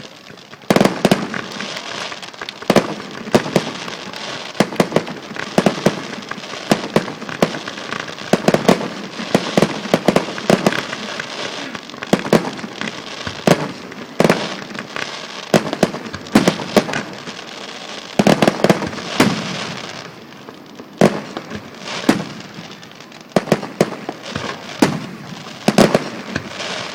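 Aerial fireworks bursting in a rapid barrage of sharp bangs, dense for most of the stretch and thinning to scattered reports near the end.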